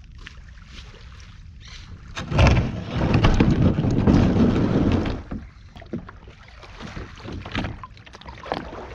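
Fishing kayak's hull scraping over sand and shells as it is pushed off the beach, loudest for about three seconds from just after two seconds in. This is followed by lighter clicks and splashes of water against the hull once it floats.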